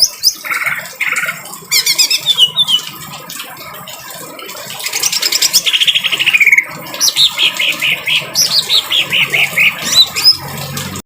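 Green leafbird (cucak ijo) song: fast runs of short repeated high notes and trills, with two harsh, rasping notes about half a second and a second in, over a steady hiss of rain water.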